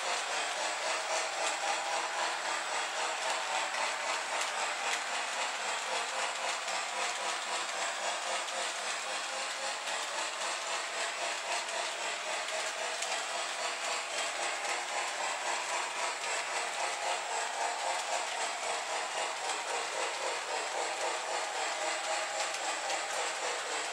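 Lionel LionChief Plus O gauge Mikado steam locomotive pulling freight cars around the track, with the steady rolling noise of the model train's wheels on the rails.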